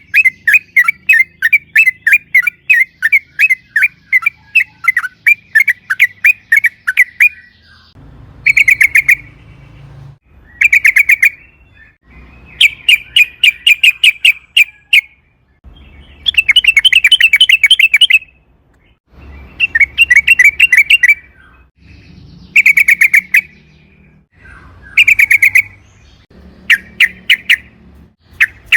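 Yellow-vented bulbul (trucukan) singing. For about seven seconds it gives a steady run of short chattering notes, about four a second. Then come repeated bursts of fast rolling trills, each a second or two long, with short pauses between them.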